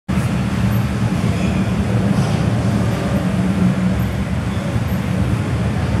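Steady low background rumble.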